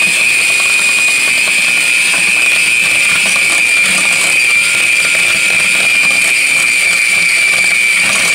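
Small electric hand mixer running steadily, its beaters churning thick cookie dough in a glass bowl, with a constant high motor whine.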